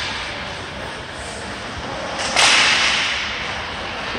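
Ice hockey play on an indoor rink: a loud, sharp crack about two seconds in that echoes and fades through the arena, over a steady hiss of skates on the ice.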